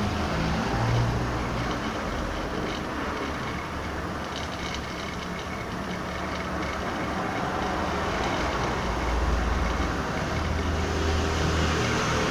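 Cadence electric fan running under test: a steady rush of air over a low motor hum, slowly swelling and easing.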